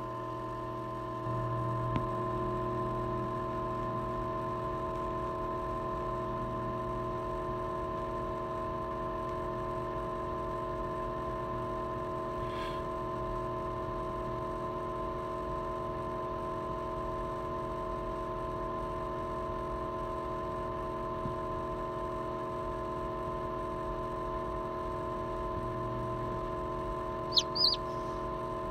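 Steady electrical hum from an egg incubator's fan and heater, with two short, sharp high peeps near the end from a chick that has pipped its shell, calling from inside the egg.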